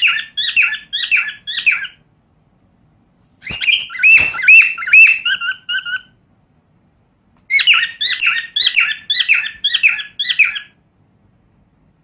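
Cockatiel chirping in three quick runs of short, rising notes, with pauses of a second or two between the runs.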